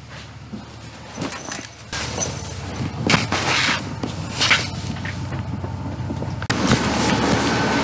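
School bus running, heard from inside: steady engine and road rumble with short bursts of hiss. About six and a half seconds in, the noise suddenly gets louder.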